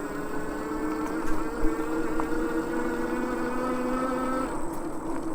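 Fiido Titan electric bike's motor whining steadily under power on an uphill ride, over wind and fat-tyre rumble. The whine cuts out near the end, and there is a single sharp knock about a second and a half in.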